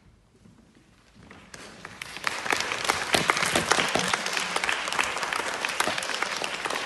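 Audience applause: after a brief near-silence it starts with scattered claps about a second and a half in and quickly swells to steady, full clapping.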